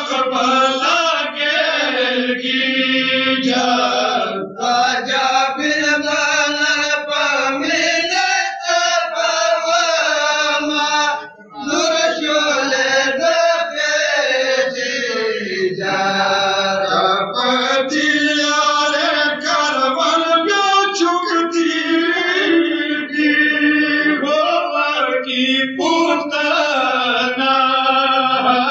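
Men chanting a Pashto noha, a Shia mourning lament, in a melodic recitative, broken by one short pause about 11 seconds in.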